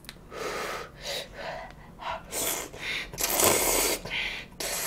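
Close-miked eating sounds from a mouthful of spaghetti noodles: about seven short slurps and breaths in quick succession.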